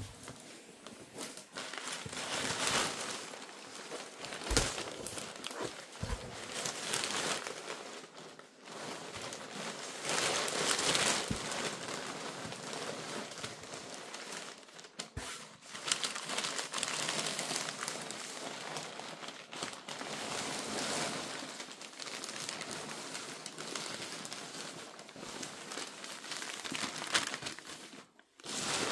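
Packaging of a boxed die-cast model airplane being handled and opened: irregular crinkling and rustling, with occasional sharp clicks and knocks.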